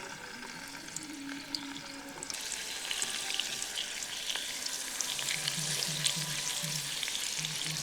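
Turmeric-coated fish pieces frying in hot oil over a campfire: a sizzling hiss full of small crackles that grows suddenly louder about two seconds in, as the fish goes into the oil.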